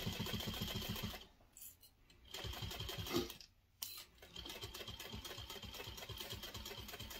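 Juki industrial sewing machine top stitching a seam in three runs with short stops between them. Each run is a quick, even needle clatter with a thin motor whine, and the last and longest run starts about four seconds in.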